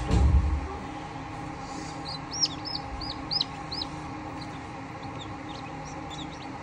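Newly hatched Golden Misri chicks peeping: a quick run of about six high chirps from about two to four seconds in, with fainter chirps scattered around it, over the steady hum of the incubator. A low thump right at the start.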